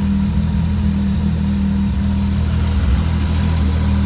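Ski-Doo Renegade X 1200 4-TEC snowmobile's three-cylinder four-stroke engine running steadily at idle through its stock muffler.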